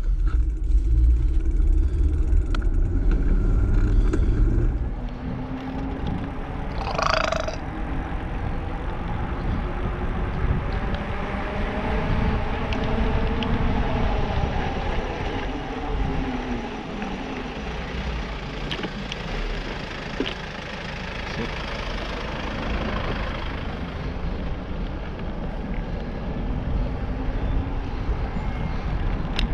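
Wind rumbling on the microphone and tyre noise of a ride on an asphalt road, heaviest in the first five seconds. There is a brief sharp sound about seven seconds in, and faint tones glide up and down in the middle.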